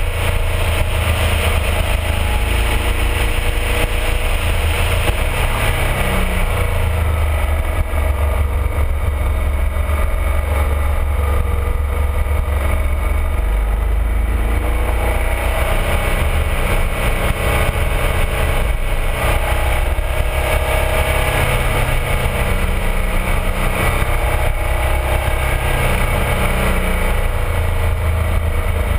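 BMW R1200RT motorcycle riding, its boxer-twin engine running under heavy low wind rumble on the camera microphone. The engine note rises and falls a few times.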